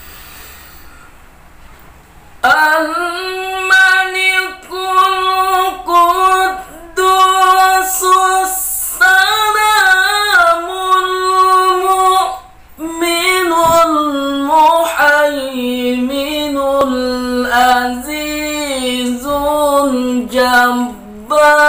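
A man reciting the Quran in melodic tilawah style, a high solo voice holding long ornamented notes. The recitation begins about two and a half seconds in, breaks briefly for breath past the middle, then goes on at a lower pitch.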